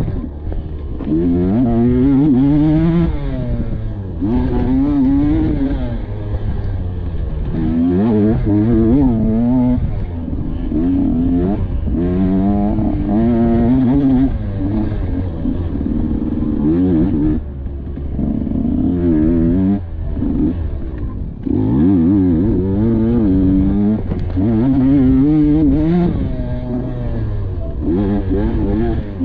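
Dirt bike engine ridden hard on a cross-country trail, its pitch rising and falling over and over as the throttle is opened and shut every second or two.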